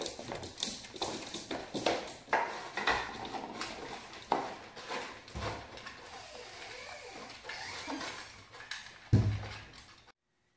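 A dog and a person eating fast from bowls set on a hard floor: many clinks, clatters and scrapes of the bowls with eating noises, and one loud thump about nine seconds in. The sound cuts off suddenly near the end.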